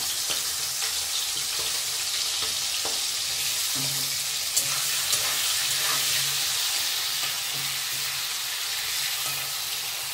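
Whole prawns frying in hot oil in a kadai: a steady sizzle with a few sharp pops and clicks.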